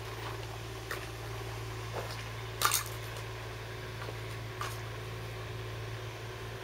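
A few faint metallic clicks and clinks, about four spread over several seconds, from handling the H&R pump-action shotgun, over a steady low hum.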